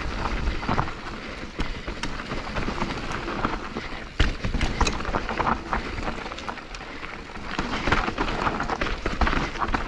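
Mountain bike riding down a dirt trail: tyres rolling over dirt and gravel with many small clattering knocks, wind buffeting the microphone. A sharp knock about four seconds in.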